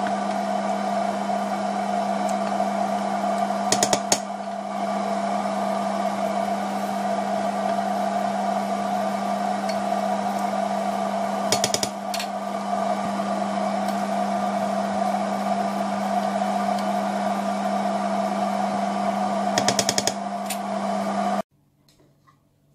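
Steady fan-like whirring with a constant low hum, broken by brief clusters of clicks about every eight seconds; it cuts off suddenly near the end.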